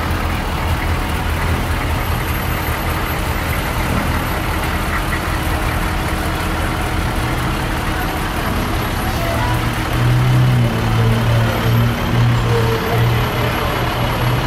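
Fire trucks' diesel engines running as they roll slowly past at parade pace. From about ten seconds in, an International 4900 engine tanker's engine grows louder as the truck passes close, with an uneven, pulsing drone.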